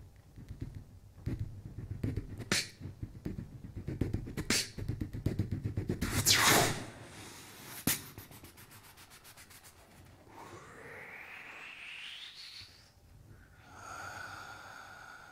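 Beatboxing into a handheld microphone: deep vocal kick-drum thumps and sharp snare-like clicks in an irregular rhythm, with a loud swooping sweep about six seconds in. After that a sound glides steadily upward in pitch, and near the end a steady pitched tone is held.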